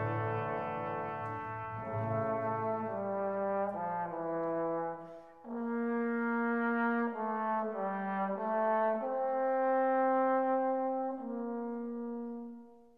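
Background music: a slow melody of long held notes, with a short break about five seconds in, fading out near the end.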